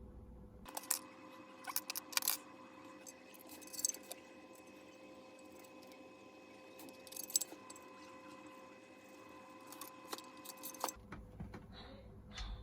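Light metallic clinks and jingles, as of small metal parts being handled, over a faint steady hum.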